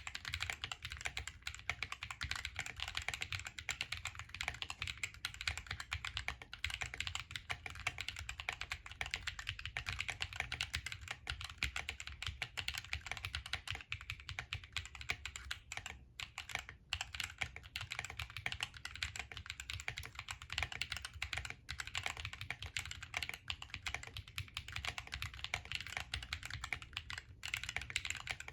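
Continuous fast typing on a Drop Planck ortholinear mechanical keyboard with lubed Akko Lavender Purple tactile switches, an FR4 plate, case and plate foam and DSA-profile keycaps: a dense stream of keystroke clicks and clacks, with a couple of brief pauses.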